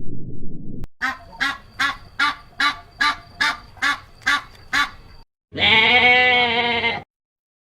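Waterfowl honking in an even series of about eleven calls, two or three a second. After a short gap comes a single long animal call with a wavering pitch.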